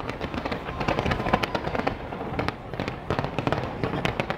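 Fireworks going off in rapid succession, a dense run of sharp bangs and crackles.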